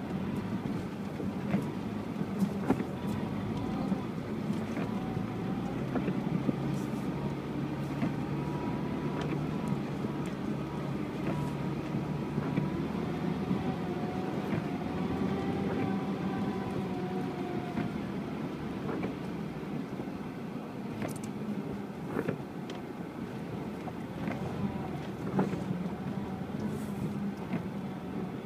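UAZ Patriot engine running steadily while the SUV drives off-road, with scattered short knocks and clicks.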